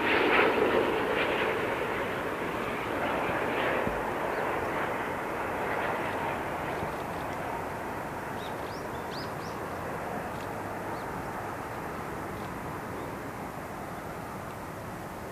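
Boeing 787-8 Dreamliner's Rolls-Royce Trent 1000 jet engines on final approach, a steady rushing rumble with a brief whine at the start. It is loudest at the opening and fades steadily as the airliner moves away toward the runway.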